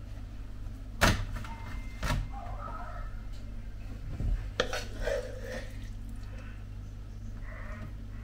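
Kitchen cookware clatter: a frying pan and wooden spatula knocked against the hob and board as minced-meat filling is spooned onto a tortilla, with sharp knocks about a second and two seconds in and again just past the middle. A steady low hum runs underneath.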